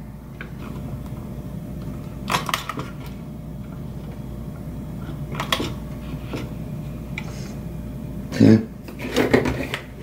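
A screwdriver clicking against the plastic key switch and its spring clips on an Apple II Plus keyboard: a few separate sharp clicks over a steady low hum, with a brief louder sound near the end.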